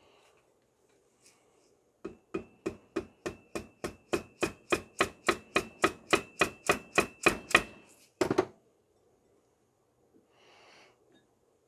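A mallet tapping the rotor shaft of a Century Centurion B1000 pool pump motor, seating its new bearing in the bottom of the motor housing: about twenty light, quick taps at about four a second, getting louder, with a faint metallic ring, then a heavier double knock.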